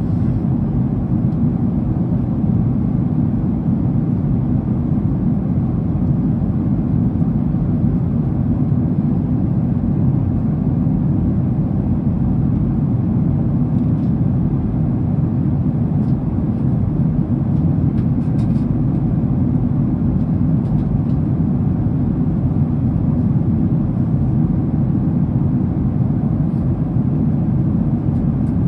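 Jet airliner cabin noise in cruise: a steady low rumble of engines and rushing air, unchanging throughout.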